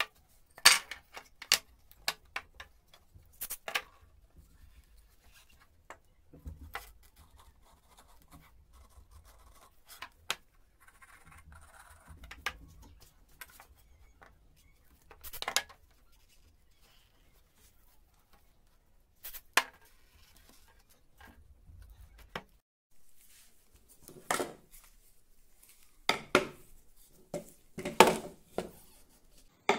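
Wooden strips and small parts being handled and set down on a plywood board: scattered light knocks and clicks, with a run of louder wooden knocks near the end.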